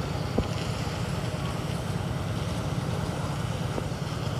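Concrete mixer's engine running steadily with a low drone, with one short knock about half a second in.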